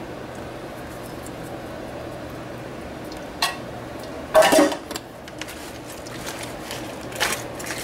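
Kitchen utensil and container handling around a foil casserole pan: a click about three and a half seconds in, then a louder, brief clatter with a ringing tone, and a couple of softer knocks near the end, over a steady low hum.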